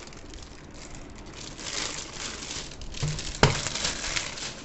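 Rustling and crinkling of plastic packaging being handled, with one sharp knock about three and a half seconds in.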